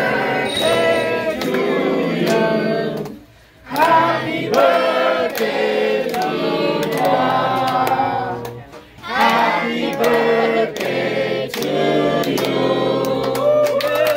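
Voices singing in phrases with held notes, breaking off briefly twice, about three seconds and nine seconds in.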